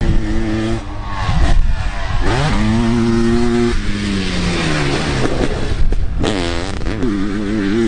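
Sidecar motocross outfit's engine revving hard, its pitch climbing, holding and falling again with throttle and gear changes. The engine note drops briefly about six seconds in as it passes close by, then revs up again.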